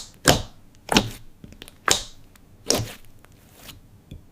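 Thick slime pressed down by hand, making little popping sounds: four sharp pops about a second apart.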